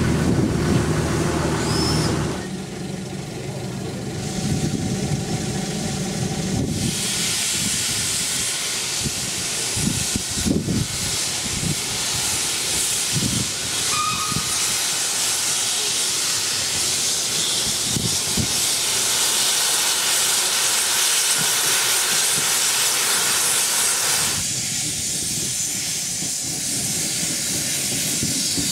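Small industrial steam tank locomotive moving off with its cylinder drain cocks open, steam hissing loudly, with a few low thumps among the hiss. The hiss eases off near the end.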